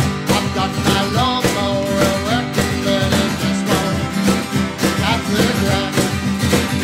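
Small acoustic band playing a country-blues tune: several acoustic guitars strummed and picked over a steady cajon beat.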